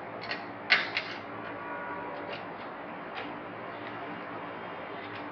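A few light clicks and taps of a screwdriver driving the mounting screws of a PC power supply into the metal case, over a low steady hiss.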